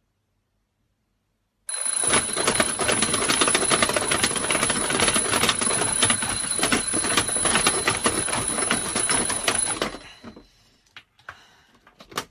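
Alarm clock bell ringing loudly, a fast clattering of strikes with a steady ring over it. It starts suddenly about two seconds in and stops around ten seconds, followed by a few faint clicks and one sharp click near the end.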